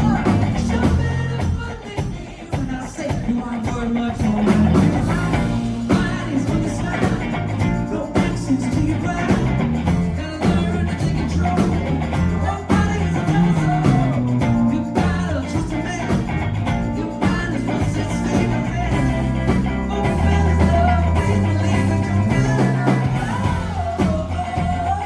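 Live pop-rock band playing an instrumental passage, with a bass line moving in steps under a steady drum beat.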